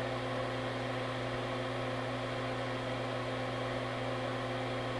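Steady electric hum and whir of a small motor, like bench equipment running, with no change throughout.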